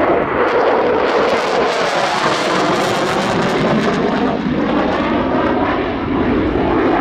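Fighter jet engine noise, loud and steady, growing brighter and hissier about two to three seconds in.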